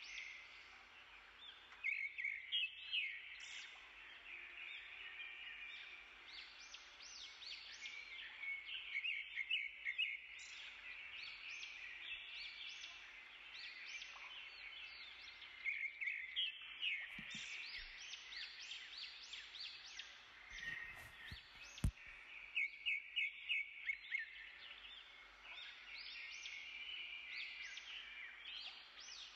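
A continuous chorus of many short, high chirping animal calls, repeated in quick runs, with a couple of brief knocks about two-thirds of the way through.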